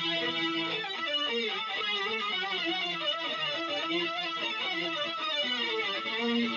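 Synthesizer pulse-width-modulation (PWM) lead patch playing a melodic line: a few held notes, then from about a second in a run of quick notes with bending, wavering pitch.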